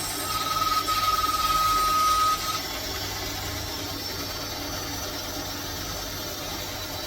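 Bandsaw running and cutting wood, with a louder high steady whine over the first couple of seconds that then drops away.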